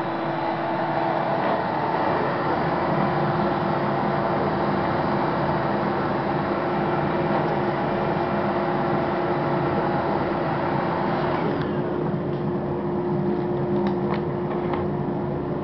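Canister shop vacuum motor running steadily, a constant hum under a rushing hiss. About twelve seconds in the hiss turns duller.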